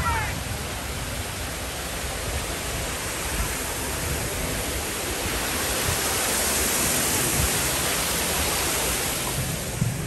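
Fountain water spilling over the rim of a wide tiled basin and splashing into the pool below, a steady rushing splash that grows louder from about six seconds in.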